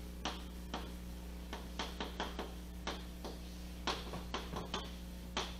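Chalk writing on a chalkboard: an irregular series of short taps and clicks as the strokes are made, over a steady low electrical hum.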